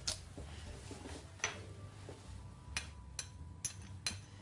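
A metal spoon and knife clicking against a glass blender jar as a garlic clove is scraped in: a few sharp separate taps, the last four coming about half a second apart.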